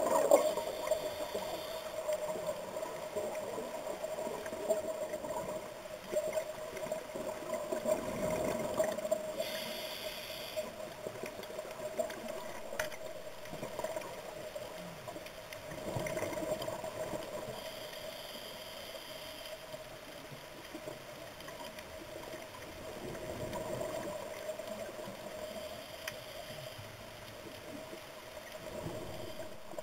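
Underwater sound picked up by a camera in its housing: a scuba diver's exhaled bubbles gurgling in recurring bursts about every eight seconds, over a steady hum.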